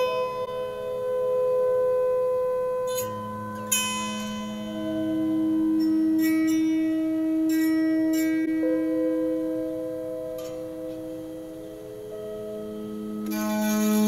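Electric autoharp played in a drone style: long sustained tones swell and fade and overlap, with a few brighter strummed or struck attacks across the strings.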